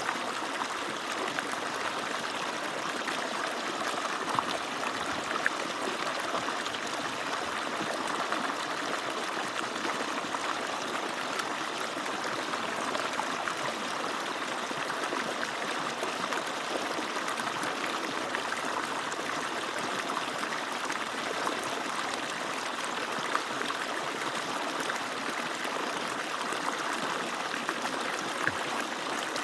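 Water from an agricultural pump's outlet falling and splashing steadily, an even rush with no letup.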